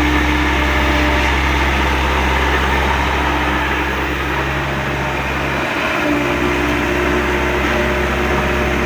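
A motor running steadily: a low hum with a hiss, whose pitch shifts slightly a little past halfway. It starts and stops abruptly.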